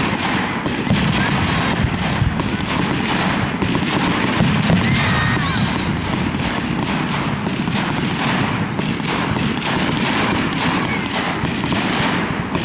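Fireworks display in a dense barrage: many shells bursting in quick succession, a continuous rapid run of bangs and crackles with a heavy low rumble and no pause.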